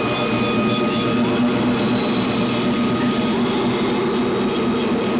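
A steady, dense droning soundscape with a few faint high tones held over it, an ambient film score rather than any sound made in the scene.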